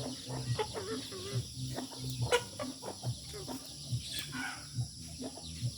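Flock of chickens clucking and calling, with high chirps from chicks, over an uneven low pulsing; a sharp click stands out about two seconds in.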